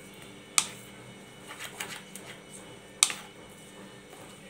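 White plastic spoon stirring thick mung dal and vegetable batter in a red plastic bowl: two sharp knocks of the spoon against the bowl, about two and a half seconds apart, with softer clicks and scraping between.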